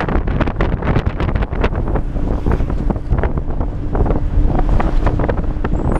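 Wind buffeting the microphone inside a moving minibus with open windows, over a constant engine and road rumble and frequent short rattles and knocks from the vehicle. A steady hum joins in about two seconds in.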